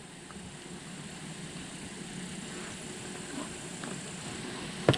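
A distant engine droning steadily and slowly growing louder, with a couple of sharp clicks near the end.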